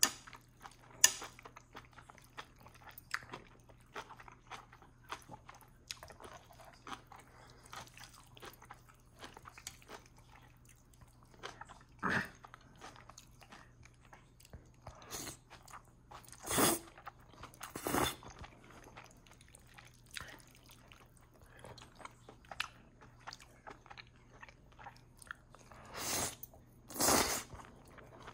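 A person eating close to the microphone: chewing with many small wet mouth clicks, and several louder bursts in the middle and near the end.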